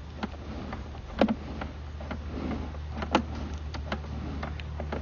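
Sewer inspection camera's push cable being pulled back through a drain line: irregular sharp clicks and knocks over a steady low hum, the loudest knocks about a second in and about three seconds in.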